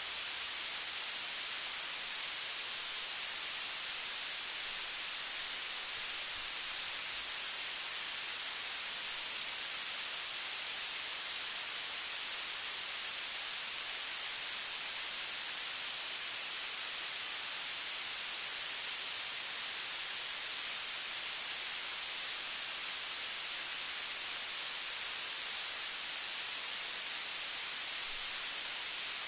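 Steady hiss of static, strongest in the high end, with no other sound standing out: recording noise from a quiet room.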